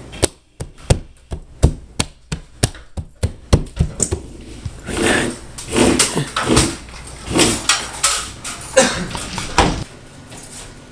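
Hand work on a flush-mount in-ceiling speaker: a quick run of sharp clicks and taps, then longer rubbing and scraping sounds that stop about ten seconds in.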